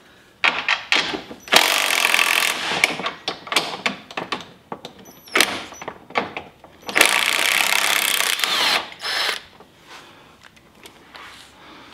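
Red Snap-on cordless drill driving a socket to back out seat-belt mounting bolts while a wrench holds the nut. It runs in two bursts of about a second each, about a second and a half in and again about seven seconds in, with clicks and clinks of the wrench and metal parts between.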